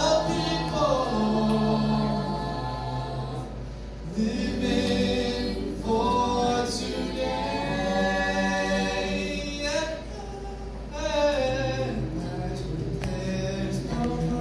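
A cappella vocal group singing in close harmony into microphones: several voices holding sustained chords over a sung bass line, with no instruments.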